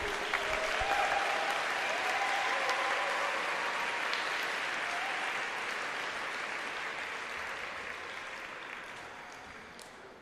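Audience applauding, steady at first, then dying away over the last two seconds.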